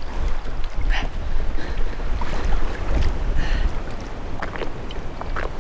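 Strong wind buffeting the microphone over choppy river water, a steady low rumble with a hiss above it. A few faint short knocks come through it, most of them in the second half.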